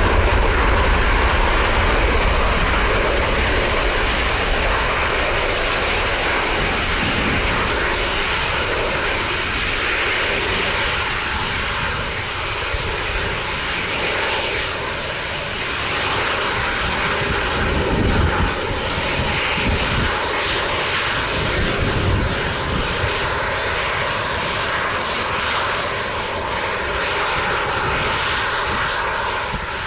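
Airliner's jet engines running at an airport, a continuous loud rush with a deep rumble that is strongest at first and slowly eases, and a faint steady tone held through it.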